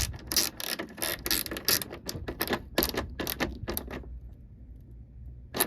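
Hand ratchet wrench clicking rapidly, about five clicks a second, as bolts are run down; it stops about four seconds in, with one more click near the end.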